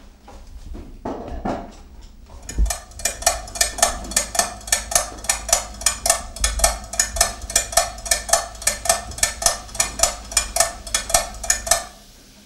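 A rapid, even series of sharp percussive clinks, about four a second, starting about two seconds in and stopping abruptly near the end, with a dull thump just as the run begins.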